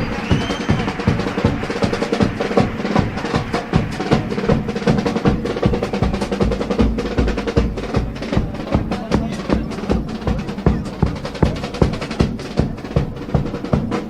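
Chirigota band's percussion, bass drum and snare drum, beating a steady, fast rhythm in an instrumental passage, over a held pitched instrument tone.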